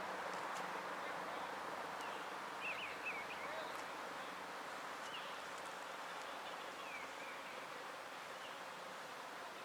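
Faint outdoor background: a steady hiss with a few short bird chirps about three seconds in and again later. The warning siren is silent.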